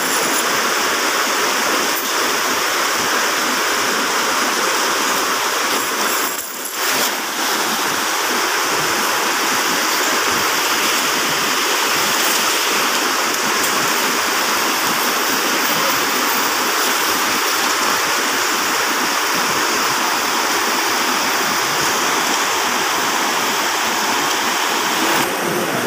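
Fast, muddy river rushing over rocks in rapids: a steady, loud rush of water, briefly dipping about six and a half seconds in.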